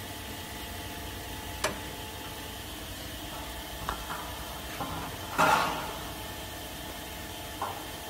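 Thin galvanized sheet steel clacking and rattling against a steel mandrel as it is worked into place by hand: a sharp clack about one and a half seconds in, a few lighter ticks, and the loudest ringing clatter about five and a half seconds in. A steady machine hum runs underneath.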